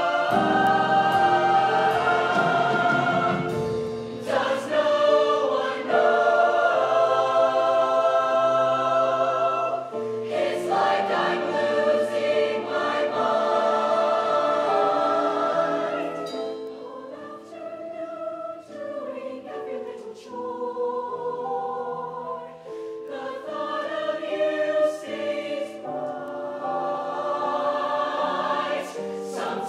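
Mixed SATB show choir singing full, sustained chords. The sound thins to a softer passage a little past halfway, then swells again near the end.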